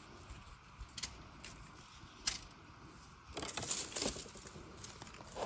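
Dry bamboo culms and brittle leaf litter clicking and crackling as they are handled and pushed aside. A few isolated sharp clicks come first, then a burst of crisp crackling and knocking about three and a half seconds in.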